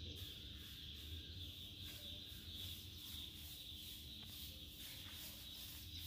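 Faint steady background: a constant high hiss and a low hum, with no distinct event standing out.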